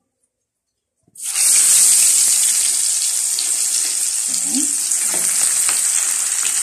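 Flour-coated fish frying in hot oil in a pan: a loud, steady sizzle that starts suddenly about a second in.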